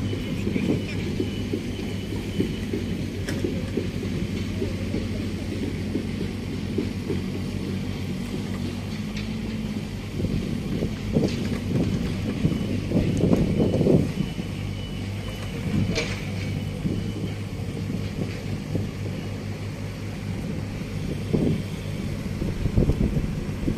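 Kubota mini excavators' diesel engines running steadily under hydraulic load while grading sand, with the working noise swelling around the middle and a few sharp knocks from the machines.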